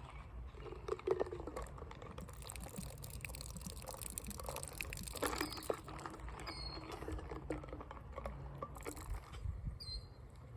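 Creek water trickling and splashing, with small scattered clicks and knocks and a few short high chirps.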